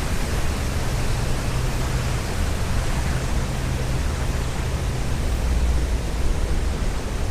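Wind blowing over the camera microphone: a steady hiss with a deep low rumble underneath.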